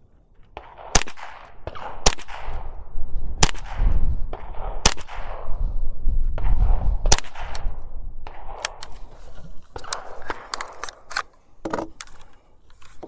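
Five single shots from a GSG-15 .22 LR semi-automatic rifle, fired at an unhurried, uneven pace over about six seconds, each a sharp crack with a brief tail: a group fired from the bench to check a windage adjustment while sighting in. A few lighter clicks and knocks follow near the end.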